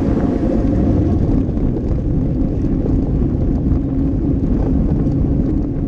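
Steady low rush of wind over a handlebar-mounted camera's microphone on a road bike racing at speed, mixed with the bike's tyre and road noise.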